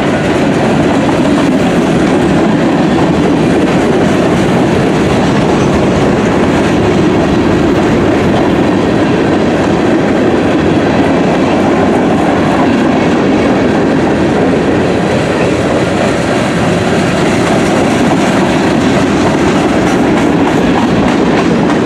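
Freight cars rolling past at close range: tank cars and covered hoppers going by, their steel wheels running on the rails in a loud, steady rumble.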